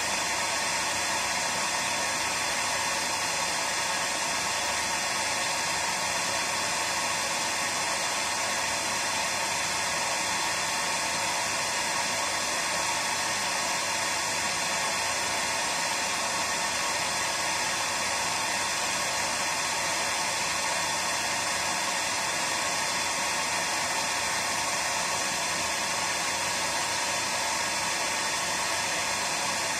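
Hair dryer running steadily: an even, unbroken hiss of blowing air.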